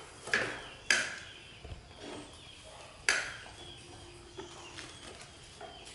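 Large plastic toy dump truck knocking as it is handled and climbed on: three short, sharp knocks, two close together near the start and one about three seconds in, with quiet between.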